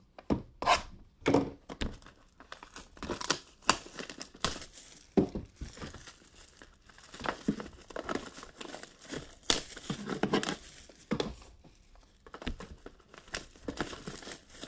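Plastic shrink-wrap crinkling and tearing as sealed football trading-card boxes are unwrapped and opened, in irregular bursts of crackling and ripping.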